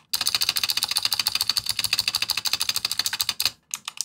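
Fast typing on a Razer Huntsman V2 Tenkeyless with clicky optical switches: a dense stream of sharp, crisp key clicks. It breaks off briefly about three and a half seconds in, then resumes with more scattered keystrokes. The clicky sound is the sign that this is the clicky-switch version, not the linear one.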